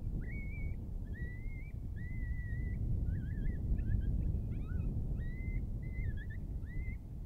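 Wind buffeting the microphone with a low rumble, while a string of clear whistled notes sounds over it: several half-second notes, each scooping sharply up and then held, followed by quicker warbling and chattering notes.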